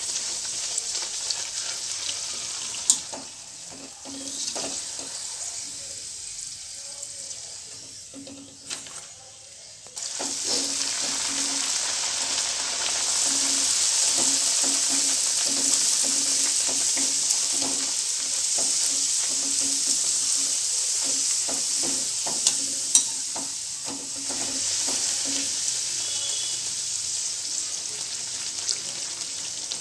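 Hot oil sizzling as puris deep-fry in a kadai, the sizzle getting much louder about ten seconds in as a fresh puri is pressed into the oil with a slotted spoon. A few sharp clicks of the metal slotted spoon against the pan.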